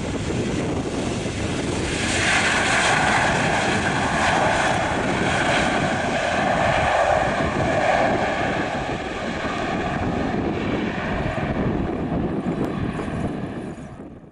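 Boeing 737-800's CFM56 jet engines on the landing rollout, their roar rising sharply with a strong whine about two seconds in as reverse thrust is applied, then easing off after about eight seconds. The sound fades out near the end.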